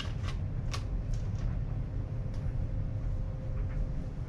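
Steady low background rumble with a faint steady hum, and a few light clicks and taps in the first second and a half.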